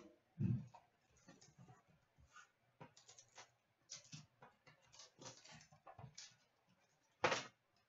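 Faint crinkling and rustling of a foil trading card pack wrapper being torn open and handled, with small clicks of cards being handled; a short louder crinkle near the end.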